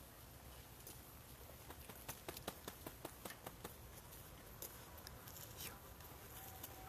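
Quiet background with a quick run of light, sharp clicks about two seconds in, about five a second, and a few scattered clicks a little later.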